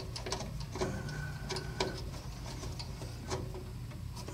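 Hand screwdriver driving mounting screws into a circuit board: irregular small clicks and ticks, with a short faint squeak about a second in.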